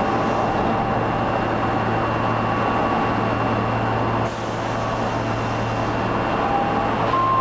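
Osaka Municipal Subway 22 series train standing at the platform, its equipment humming steadily. A short sharp hiss of air comes about four seconds in.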